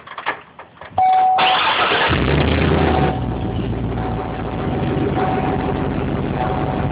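Car engine being started: a few light clicks, a steady high tone about a second in, then the starter cranks briefly and the engine catches and settles into a steady idle.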